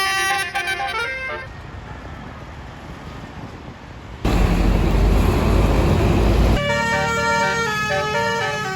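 Bus 'telolet' Basuri horn playing a quick multi-note tune that stops about a second and a half in. Traffic noise follows, then a loud rumble of about two seconds, and from about seven seconds in a horn tune plays again.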